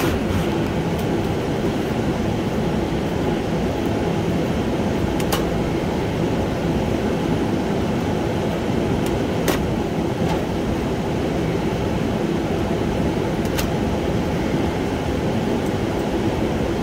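Evaporator fans of an open frozen food display case running steadily, a constant whirring rush of air. They are still running while the case is in defrost because a lead of the defrost termination switch is open. A few light clicks sound over it.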